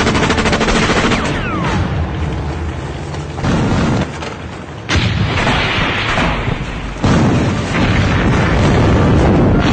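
Battle sound effects: a light machine gun firing a rapid burst, a falling shell whistle, then three heavy booms of mortar fire and explosions, the last one the loudest.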